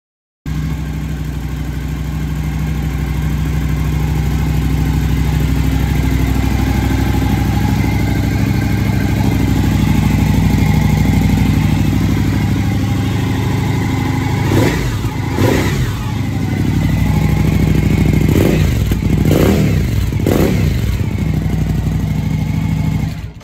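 2020 Suzuki V-Strom 1050's V-twin engine idling steadily, then revved in five short throttle blips in the second half, each rising and falling back to idle. The sound cuts off suddenly near the end.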